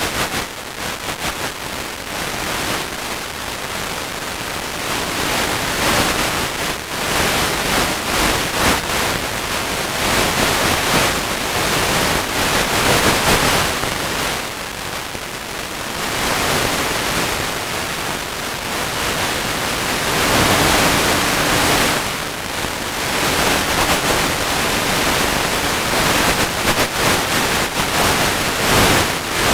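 Steady rushing hiss of static from an analog FPV video link's audio channel, swelling and fading every few seconds, with a faint low hum that comes and goes.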